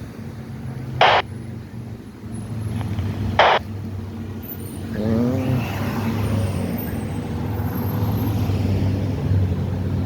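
Steady low hum of a motor vehicle running, with two short bursts of hiss about one second and three and a half seconds in, and a brief wavering tone a little after five seconds.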